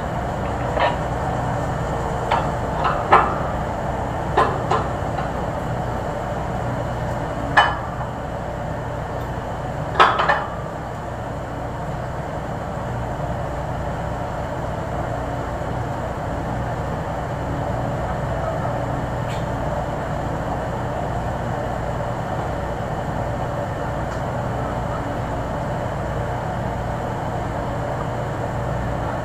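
Sharp metal clanks and clinks of a hand tool on a pipeline valve as the line is being opened, about eight knocks in the first ten seconds, some ringing briefly. A steady low hum and noise run underneath.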